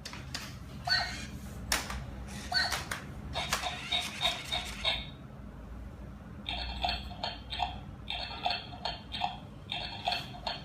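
Small electronic robot pet toy playing its built-in sound effects through a tiny speaker: short synthetic chirping animal noises in quick runs of several a second, with sharp clicks in between.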